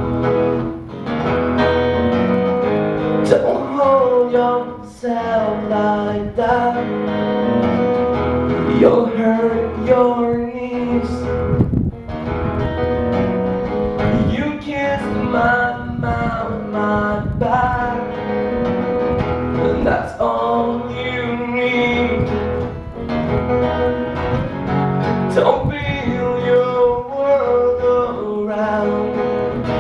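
Two acoustic guitars played together in a live duo, with a man singing over them.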